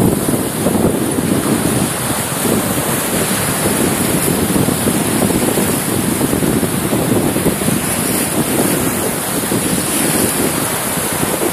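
Small sea waves breaking and washing in at the shoreline, with wind buffeting the microphone.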